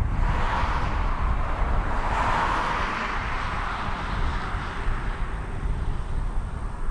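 Airbus A321-231 jet engines (IAE V2500 turbofans) during landing: a broad jet hiss over a heavy low rumble, swelling to a peak about two to three seconds in and then slowly fading as the airliner passes.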